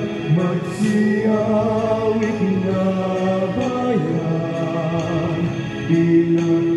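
Two male voices singing a church hymn with organ accompaniment, long held notes changing about once a second.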